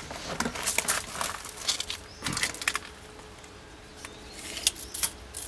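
Scattered clicks and rattles of a retractable tape measure being handled and its blade pulled out, with a sharper cluster of clicks near the end.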